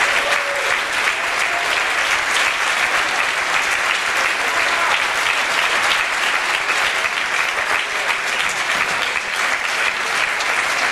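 Concert audience applauding steadily, a dense wash of many hands clapping.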